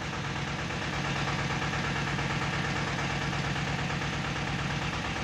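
Tata Ace Zip XL's small diesel engine idling steadily with an even, rapid pulse, running again after a no-start fault.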